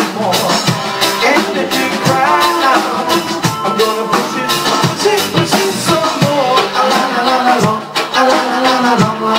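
Live band music: singing over drums and other instruments, with a steady beat of about two drum hits a second.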